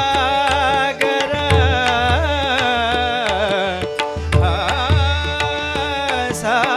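Tabla played in a busy rhythm of sharp strokes and deep bass strokes, with harmonium held tones and a voice singing wordless, ornamented phrases over them: accompaniment in an abhang devotional song.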